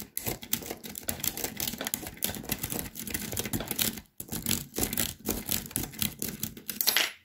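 Lock pick and tension wrench working the pins of a 5-pin Euro cylinder lock: a fast run of small metallic clicks and scrapes, with a short pause about four seconds in.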